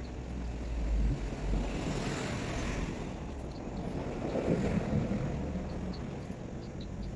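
Wind buffeting the microphone: a steady low rumble and hiss that swells twice, with a few faint small ticks.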